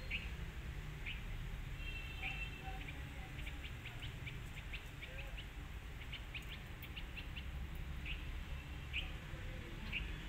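Small birds chirping in short, high calls every second or so, with spells of rapid chattering, over a steady low background rumble.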